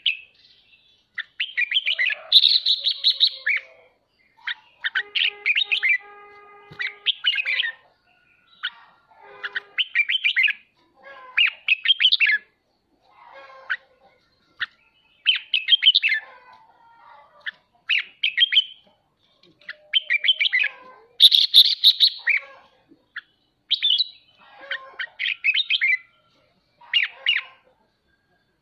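Red-whiskered bulbul giving bursts of harsh, rapid chattering calls ('ché'), the agitated chatter used to stir other bulbuls, one burst every second or so.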